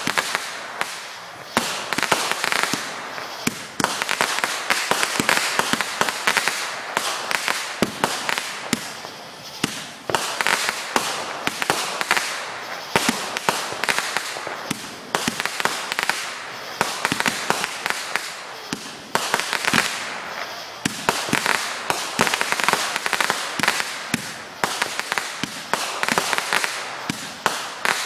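Aerial fireworks going off one after another: a dense, unbroken stream of sharp pops and crackling bursts.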